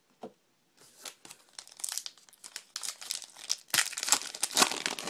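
A baseball card pack's wrapper being torn open and crinkled in the hands, a run of irregular crackling that is loudest about four seconds in.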